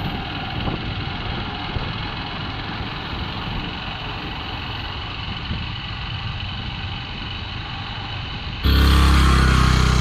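Steady running noise of a vehicle on the move, such as a motorcycle. About 8.7 s in it cuts suddenly to a louder, deeper rumble.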